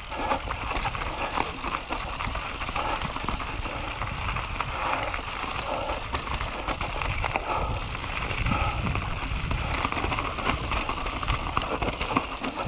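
Enduro mountain bike rolling down a dry dirt singletrack: steady tyre noise with frequent small clicks and rattles from the bike over roots and twigs.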